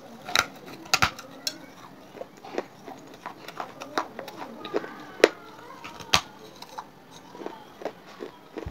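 Close-up biting and chewing of wet terracotta clay chips: irregular sharp crunches and clicks, the loudest about five and six seconds in.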